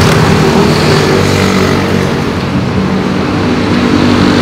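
Road traffic close by: vehicle engines running, a loud, steady noise with a low engine hum.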